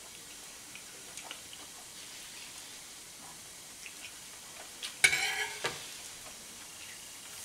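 Wood fire crackling quietly in an open hearth, with scattered small ticks. About five seconds in, a table knife scrapes across the plate with a short, loud squeal.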